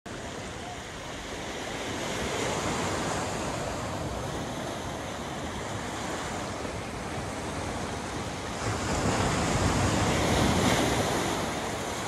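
Sea surf washing onto the shore, with wind buffeting the microphone. The rush swells a little a couple of seconds in and again more strongly from about eight and a half to eleven seconds.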